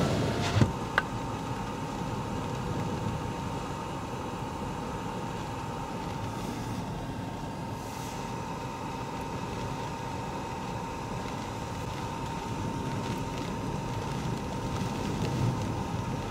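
Steady rushing of strong gusty wind around a car, heard from inside the cabin, with a faint steady hum under it.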